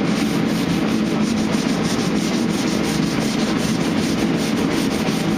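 Sanding body filler on a truck body panel: continuous, steady rubbing of sandpaper over the filler.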